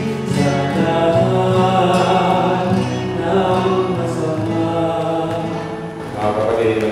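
Voices singing a slow church melody in long, held notes, with a short dip in loudness about six seconds in.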